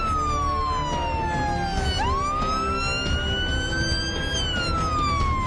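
Police siren wailing in slow sweeps. The pitch falls for about two seconds, snaps back up sharply, climbs for about two more seconds and starts falling again near the end, over a steady low rumble.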